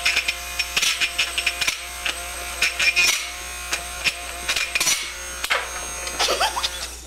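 Braun hand blender's electric motor running with a steady whine, while a pencil pushed into its spinning blade head ticks and clatters against it, sharpening the eraser end.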